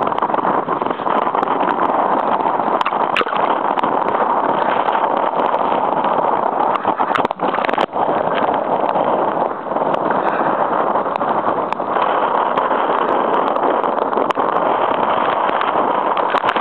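Force-9 gale wind buffeting the microphone over surf breaking and foaming at the water's edge: a loud, steady rush with a couple of brief dips near the middle.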